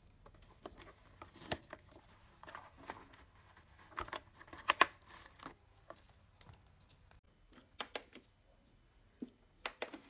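A sock being pulled by hand out of a Redmond RV-650S robot vacuum's bristle brush roll housing, where it got caught: irregular cloth rustles and sharp plastic clicks and scrapes, loudest about halfway through. The vacuum's motor is not running.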